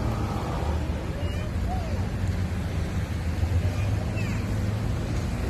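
Road traffic: cars passing on a city road, a steady low rumble, with a few short bird chirps on top, one about four seconds in.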